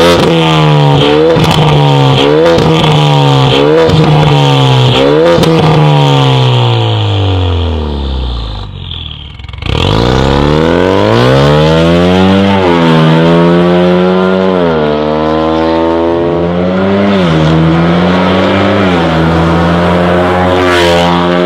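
Ford Mustang 2.3L EcoBoost turbocharged four-cylinder running through an Fi valvetronic exhaust. It blips through a string of quick free revs, each one jumping up and falling back, then winds down in one long fall. After a brief drop about nine seconds in, the engine climbs again under acceleration, its pitch dipping and rising again several times.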